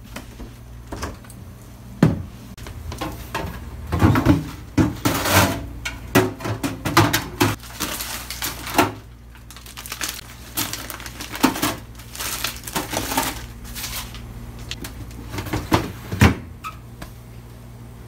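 Plastic freezer drawers and trays of a refrigerator knocking and clattering as food is handled and put away, with short bursts of packaging rustling. A steady low hum runs underneath.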